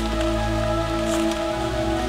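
Background music of sustained held notes that shift to a new chord about one and a half seconds in, over a steady rain-like hiss.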